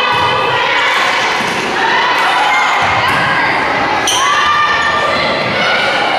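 A volleyball being served and struck during a rally on a gym floor, a few sharp hits over voices of players and spectators calling out and cheering.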